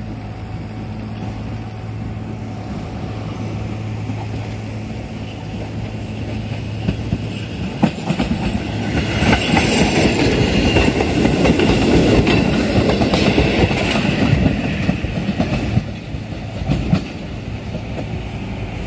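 Kotoden 1200 series two-car electric train (former Keikyu 700 series) passing close by, its wheels clacking over the rail joints. A steady low hum comes first, and the train is loudest from about eight seconds in until about sixteen seconds.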